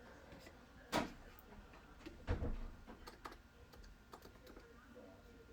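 Faint, irregular clicks and taps, with a sharper click about a second in and a soft knock a little after two seconds.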